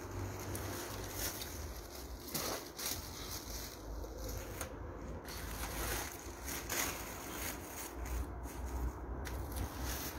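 Stacked paper kites rustling and crackling as they are lifted, shifted and laid down by hand, with a low rumble underneath.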